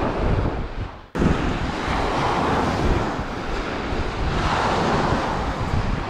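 Strong wind buffeting the microphone over waves washing on the Lake Kinneret shore, with slow swells in the rush. The sound cuts out briefly about a second in and then comes straight back.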